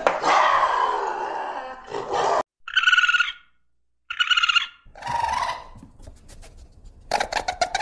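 Wild animal sounds: a lynx's rough growl, cut off about two and a half seconds in, then raccoon calls: two short high-pitched cries, a brief scuffle, and a run of quick clicking chatter near the end.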